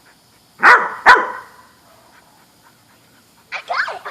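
A dog barks twice in quick succession, about half a second apart.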